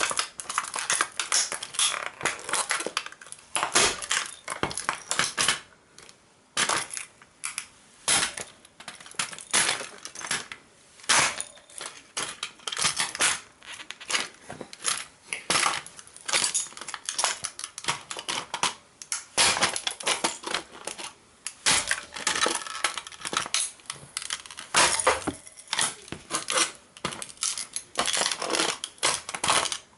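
A blue model toy car being stomped and crushed under sneaker soles: repeated irregular crunching and cracking of its body, with loose wheels, screws and small broken parts clinking and skittering on a stone tile floor.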